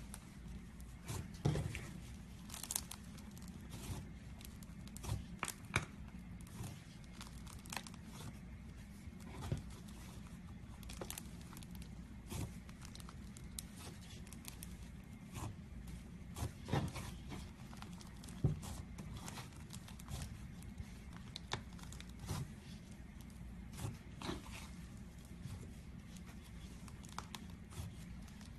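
Slime being squeezed and stretched by hand, giving irregular crackles and small pops over a steady low hum.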